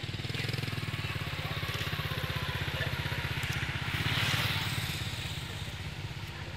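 Small motorcycle engine of a tuk-tuk running steadily with a fast, even putter. A rushing traffic noise swells briefly about four seconds in.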